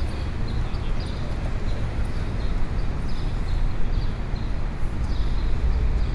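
Morning city street ambience: a steady low rumble of traffic with short high bird chirps repeating about once or twice a second.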